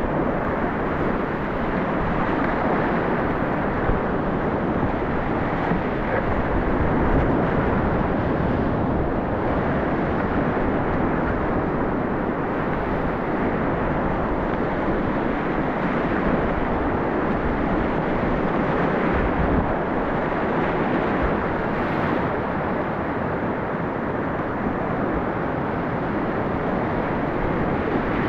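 Whitewater rapids rushing in a steady, even roar as the kayak runs down the river.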